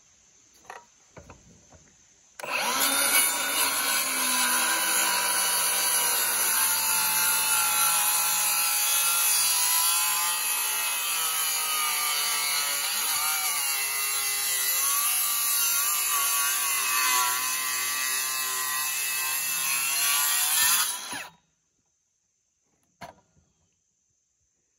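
Cordless Milwaukee M18 Fuel circular saw cutting into a thick hardwood timber beam. It starts about two seconds in and cuts steadily for nearly twenty seconds, its pitch wavering under load, then stops abruptly.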